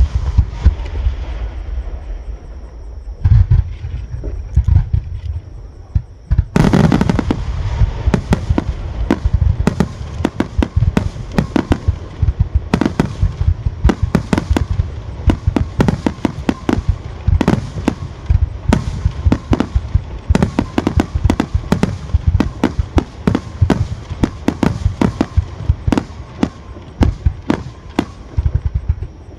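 Fireworks display going off: a few booms in the first seconds, then from about six and a half seconds in a rapid barrage of bangs and crackles, several a second, that keeps on.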